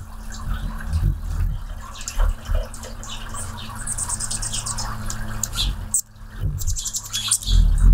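Anna's hummingbird hovering at a nectar feeder: a low wing hum, with two bursts of rapid high-pitched chittering calls, one about four seconds in and another near seven seconds.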